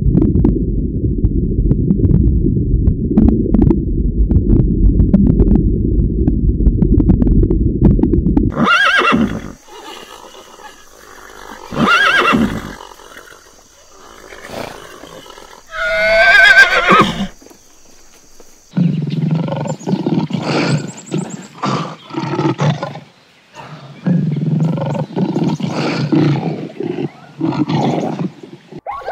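A horse whinnying once, a pitched call that wavers up and down for about a second, about halfway through. Before it a steady low rumble fills the first third; after it come clusters of short, low animal calls.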